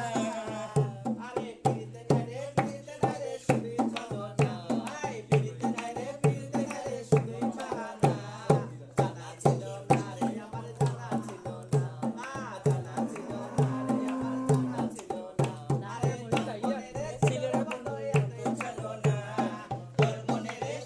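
A barrel-shaped hand drum (dholak) played by hand in a quick, steady rhythm, with a woman's voice singing a folk-style melody over it.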